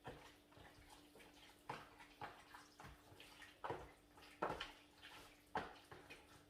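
Hands mixing raw chicken breasts with oil and seasoning: soft, irregular wet squelches and slaps, a few each second, louder in the second half.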